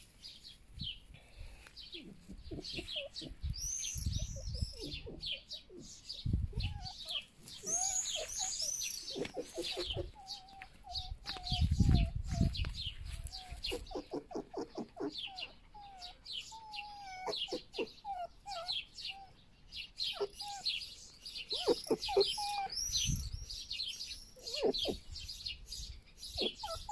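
Red foxes vocalizing over food they pass to each other: a long run of high, chirping whines and quick trains of short squeaks, the foxes' begging and food-offering calls. A few dull low bumps sound in between, the loudest about halfway through.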